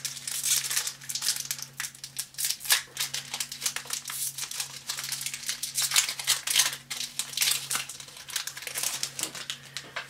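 Foil Magic Origins booster pack wrapper crinkling and crackling as it is handled and torn open, with many quick crackles close together.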